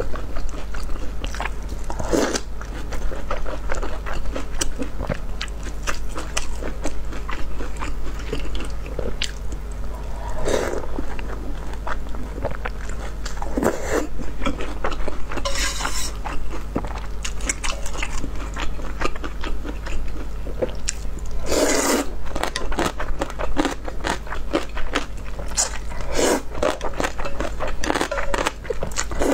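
Close-miked eating: biting into and chewing a soup-soaked fried egg and rice noodles in spicy broth, with many small wet chewing clicks and several louder slurps of noodles and soup. A steady low hum runs underneath.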